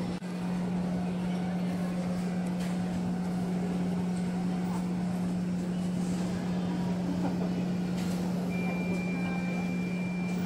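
Indoor exhibition-hall ambience: a steady low hum over a faint wash of distant crowd chatter. Near the end a thin high steady tone sounds for about two seconds.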